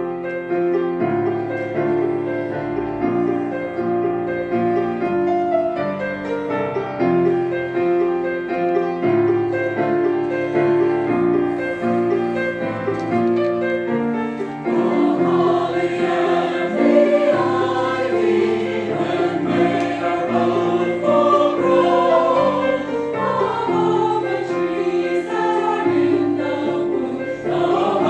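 Church chancel choir singing a Christmas anthem in harmony, with sustained chords that grow fuller and a little louder about halfway through.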